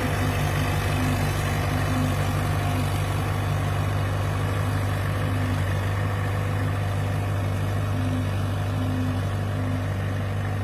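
Fiat 850 DT Super tractor engine running at a steady, even speed with a deep, constant hum.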